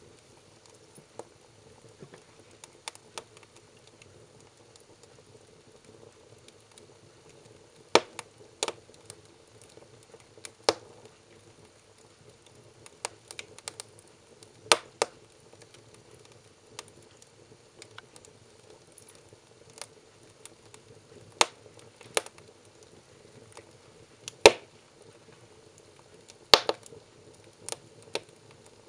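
Burning firewood crackling, with a dozen or so sharp pops at uneven intervals over a low steady background.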